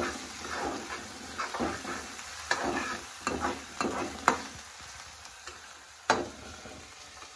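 Chopped onions sizzling in hot oil in a kadhai as they are stirred, a utensil scraping and clicking against the pan, the clicks coming thick for the first four seconds with one louder clank about six seconds in. The onions are being fried until they turn red.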